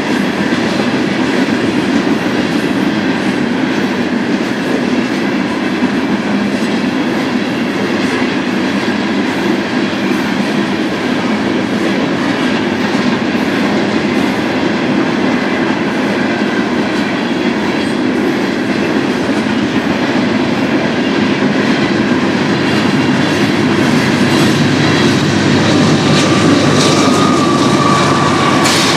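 Westbound Union Pacific freight train rolling past, a loud continuous rumble of wheels on rails, growing slightly louder toward the end, where a faint thin whine comes in.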